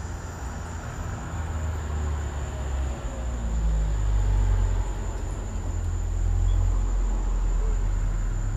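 A low rumbling noise that rises and falls in level and swells louder about three seconds in, with a faint steady high-pitched whine over it.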